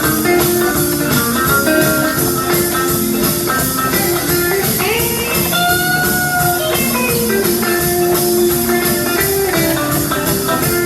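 Instrumental break of an upbeat band song, with a steady beat. A lead note bends upward about five seconds in.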